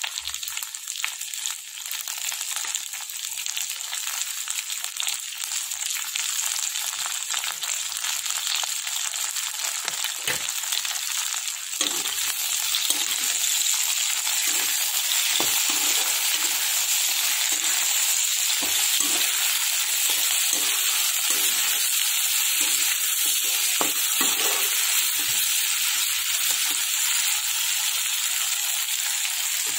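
Potato slices sizzling in hot oil in a wok. The sizzle gets louder about twelve seconds in, and from then on a spatula scrapes and stirs them against the pan again and again.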